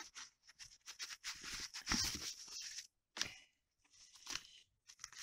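Paper and card stock rustling and sliding as pages are handled in a file-folder pocket. A run of scratchy rustles over the first three seconds, then a short tap and a few faint rustles.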